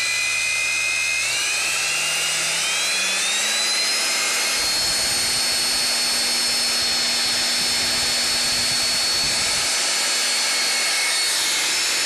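Bare 1500 W vacuum-cleaner motor, an LG-type universal motor, running straight off the wiring with a rush of air. Its high whine climbs in pitch over the first few seconds and then holds steady. It is being run in after new bearings were fitted, with new brushes still bedding in and sparking slightly.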